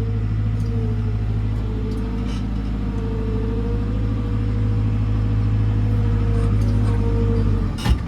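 JCB 4CX backhoe loader's diesel engine running steadily under working load as the front bucket pushes stone, heard from inside the cab, with a whine above it that drifts slightly in pitch. Near the end the sound dips briefly, with a few clicks.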